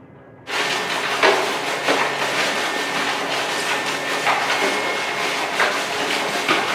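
Loud factory machinery noise that starts abruptly about half a second in: a steady hiss with a low hum and irregular metallic knocks.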